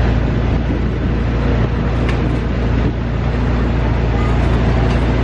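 Ice cream truck idling at close range: a steady low engine hum, with a single brief click about two seconds in.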